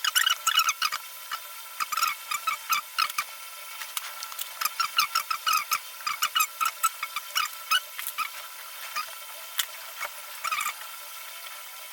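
Irregular short clicks and scrapes of hand work with tools on ceiling fan parts, coming in quick clusters with brief pauses.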